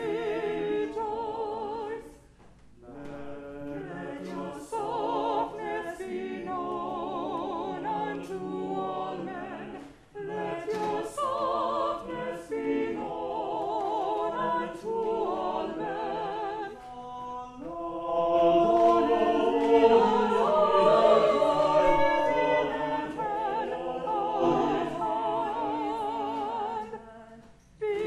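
A small church choir sings an anthem in several voices, with vibrato. There are short breaks between phrases about two seconds in, ten seconds in and just before the end, and the singing is fullest a little past the middle.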